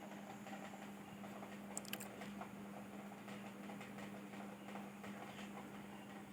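Faint room tone with a steady low hum and two small clicks about two seconds in.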